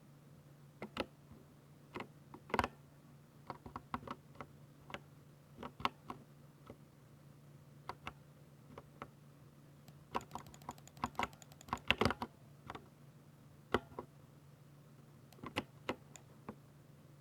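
Typing on a Ducky 60% mechanical keyboard with silver switches: irregular keystroke clicks, with a quick flurry of keys about two-thirds of the way through.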